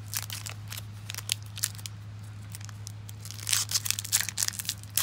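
Foil wrapper of a Topps baseball card pack crinkling and tearing as it is worked open by hand, in scattered crackles that grow denser and louder about three and a half seconds in. A steady low hum runs underneath.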